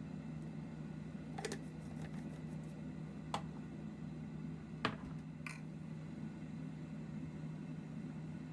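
Steady low hum with a few light, sharp clicks and taps: a short cluster about one and a half seconds in, then three single clicks a second or two apart.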